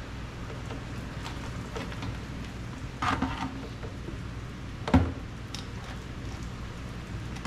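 Empty plastic soda bottle handled on a concrete floor while a clear plastic hose is pushed into its neck: a few light rustles and knocks, with a sharp hollow thump about five seconds in, over a steady low hum.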